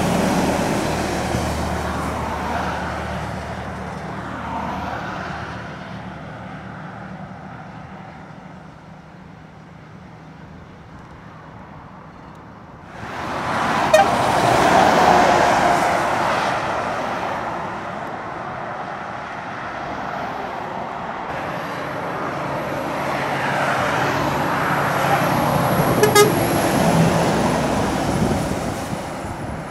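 Heavy articulated lorries climbing a long uphill grade and passing one after another, diesel engines working under load with tyre noise. The sound fades to a lull, surges suddenly as a lorry passes close about 13 seconds in, and swells again with another lorry near the end.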